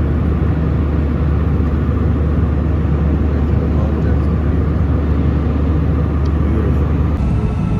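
Steady, loud cabin noise inside an airliner in flight, a low rumble of engine and airflow. It changes slightly about seven seconds in.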